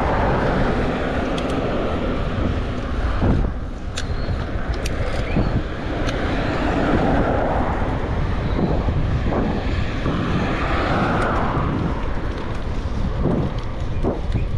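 Wind rushing over the microphone while riding a bicycle along a road, a steady noisy rush over a low rumble that swells up in a few slow waves. A few faint sharp clicks come about four to six seconds in.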